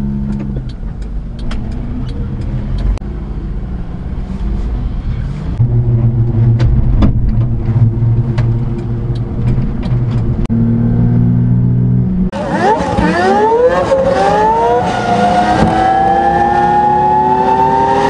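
Kei mini truck's small engine heard from inside the cab, running steadily on the road with light rattles. About twelve seconds in it gets louder and revs up under acceleration, its pitch climbing steadily.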